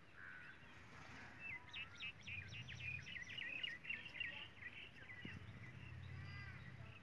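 A bird sings a quick run of many short, high chirping notes lasting a few seconds, then gives a few separate calls near the end, over faint outdoor background noise.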